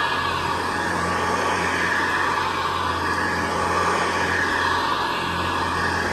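Hoover Convertible Model 704 upright vacuum cleaner running steadily over carpet: an even motor hum with a high whine above it.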